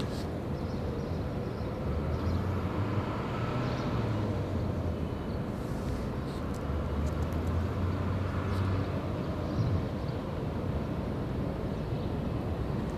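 Low, steady rumble of distant city traffic heard from a rooftop. It swells twice, about two seconds in and again about seven seconds in.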